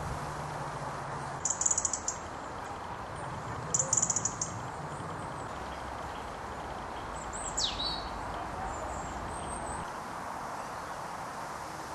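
Small birds calling over a steady rustle of wind through leaves: two quick bursts of high chirps in the first few seconds, then a single falling whistle and a faint high note later on.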